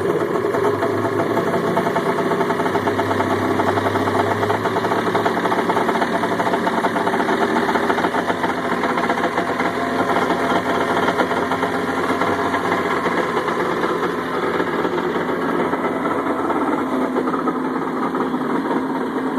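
Yamaha Wave Blaster jet ski's two-stroke 701 twin engine running steadily out of the water just after starting, on a freshly rebuilt carburettor, with a fast, even pulsing exhaust note.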